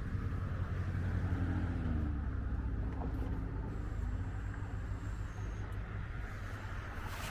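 Road traffic: passing motor vehicles, a steady low engine rumble whose tones slowly shift in pitch, with tyre noise over it. One short sharp click near the end.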